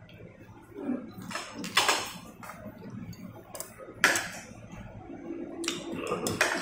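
Tableware clinking at a meal: bowls, plates and chopsticks knocking together in a few scattered sharp clinks, the loudest just before two seconds and at about four seconds in.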